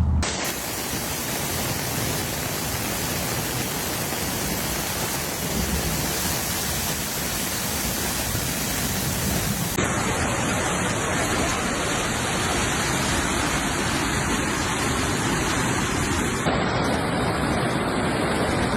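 Loud, steady rush of floodwater, spliced from several recordings. The sound changes abruptly about ten seconds in and again near the end.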